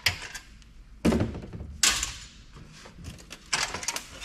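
Parts of an old desktop PC clunking and knocking as it is taken apart by hand: separate knocks about a second apart, then a quick run of smaller clicks near the end.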